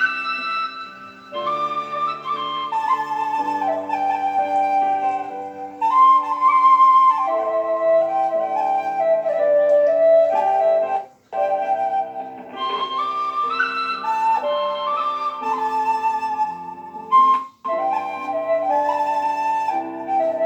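Instrumental music: a Thai khlui bamboo flute playing a slow melody over sustained backing chords. The music breaks off briefly twice, about halfway through and again about six seconds later.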